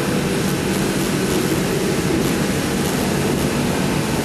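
Steady rumble of vehicle engines and road traffic, even in level throughout.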